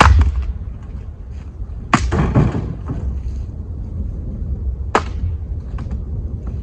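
Firewood being handled: three sharp wooden knocks about three seconds apart, the middle one followed by a short clattering tumble of wood. Wind rumbles on the microphone underneath.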